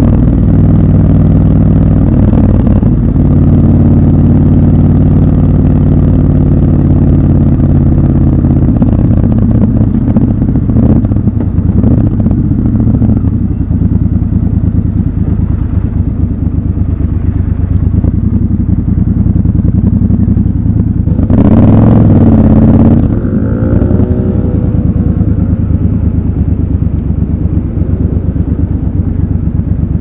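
Triumph Scrambler 1200 XC's 1200 cc parallel-twin engine running at low speed in city traffic. It holds a steady note for the first third, then sits lumpier and lower while the bike waits at a red light. About two-thirds in there is a short burst of revs, the loudest moment, and the pitch falls away after it.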